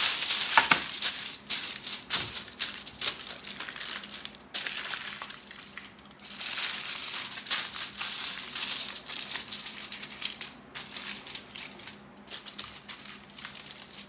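Aluminium foil crinkling as hands smooth it flat over a baking sheet and fold it down around the edges, in several bursts of crackling with short pauses between them.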